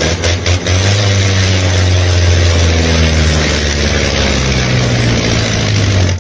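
A loud engine running steadily with a heavy low hum, with a few sharp clicks at the start; it cuts off suddenly at the end.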